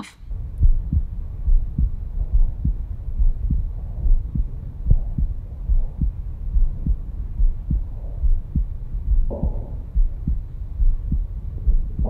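Heartbeat picked up by a Stemoscope Pro digital stethoscope over the aortic valve area, in extended diaphragm mode: regular low thumps a little faster than one a second over a steady low rumble.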